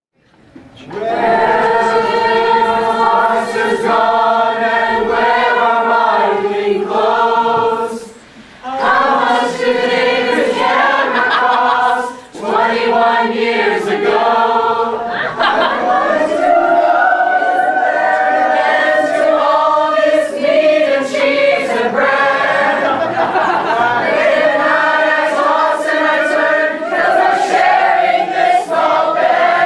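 A choir singing a cappella, several voices holding long notes together, with two short breaks about 8 and 12 seconds in.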